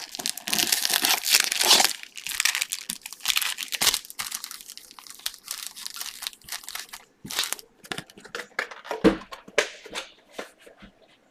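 Foil trading-card pack wrappers being torn open and crinkled, dense for the first several seconds and then thinning to scattered rustles and light knocks.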